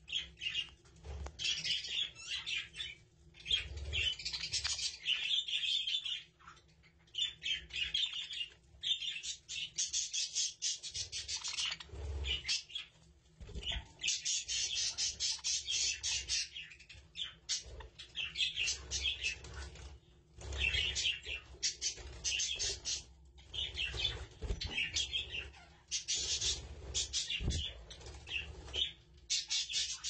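Budgerigars chattering: rapid high chirps and warbles in stretches of a few seconds, broken by short pauses, over a faint steady hum.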